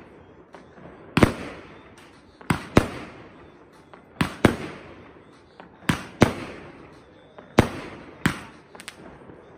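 Aerial fireworks bursting overhead: about nine sharp bangs, mostly in close pairs roughly a third of a second apart, each trailing off. A few small crackles follow near the end.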